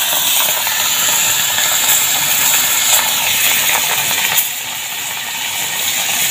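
Salted dried fish (gereh asin) deep-frying in hot oil in a black wok: a steady sizzling hiss with a few sharper pops.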